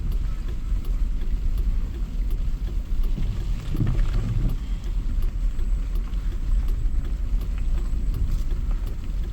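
A steady low rumble, with a brief louder low sound about four seconds in.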